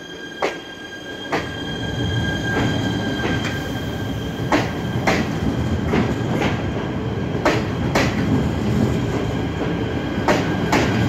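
Siemens Desiro multiple-unit train pulling away along the platform, its wheels clicking over the rail joints in pairs with a steady high whine, getting louder over the first couple of seconds as it gathers speed.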